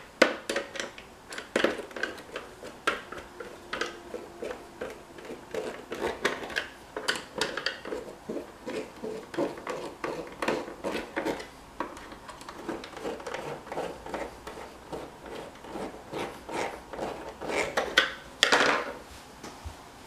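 Hand screwdriver driving the screws back into the housing of a 3M Cantata 700 tape cartridge: a run of small clicks, taps and scrapes of the driver and screws. A louder clatter comes near the end.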